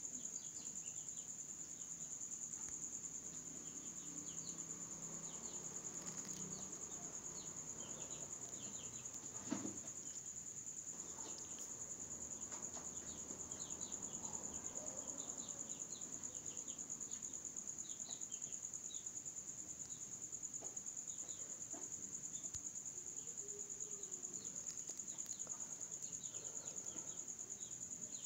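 Crickets trilling, a continuous high-pitched chorus with many shorter chirps scattered over it. A single soft knock about nine and a half seconds in.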